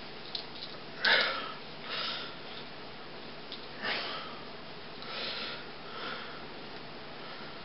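A person breathing and sniffing close to the microphone: a handful of short breaths about a second apart, the loudest about a second in.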